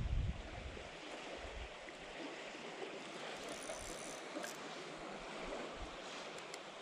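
Steady, even hiss of moving water, with a few faint low thumps of wind on the microphone.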